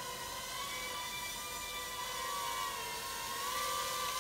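Sky Viper M550 nano quadcopter's motors and propellers whirring in a hover, a steady high whine whose pitch dips and rises slightly a little past the middle.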